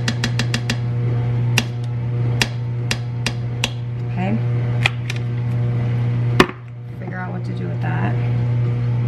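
A spoon knocking and tapping against a small tomato paste can and the pot's rim while the paste is scooped out: a string of separate sharp knocks, the loudest about six and a half seconds in, over a steady low hum. A fast, even ticking stops within the first second.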